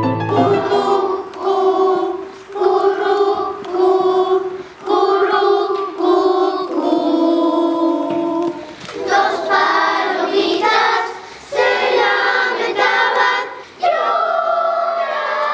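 Children's choir of third-grade primary pupils singing, in short phrases with brief pauses between them.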